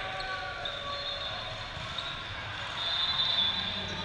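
Busy indoor volleyball hall ambience: a murmur of distant voices and court noise in a large echoing hall. Long high tones come in just under a second in and again near the end.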